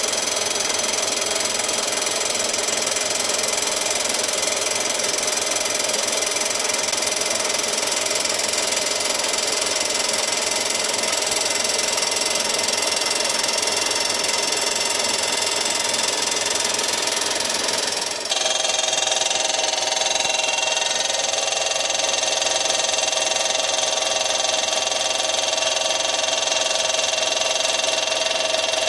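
Milling machine spindle running a fly cutter through a finishing pass on a cast-iron exhaust manifold flange: a steady machine whine mixed with cutting noise. About 18 seconds in the sound changes abruptly to a steadier whine with clearer tones.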